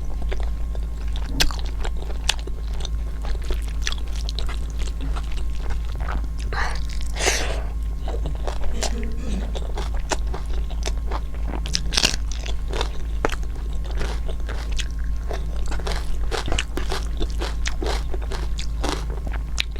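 Close-miked mukbang eating: biting, chewing and crunching food, with many short, irregular mouth clicks and crunches. A steady low electrical hum runs underneath.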